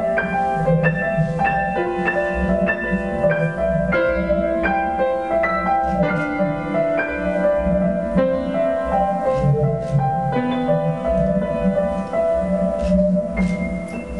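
Piano playing a steady run of single notes, about three a second, each one left to ring, over a continuous low rumbling drone.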